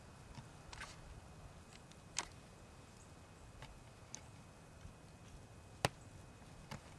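A handful of short, sharp snaps over a faint steady hiss, the loudest about two seconds in and just before the end.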